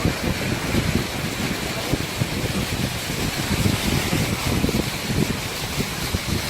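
Wind buffeting the phone's microphone in irregular low gusts over a steady rushing hiss.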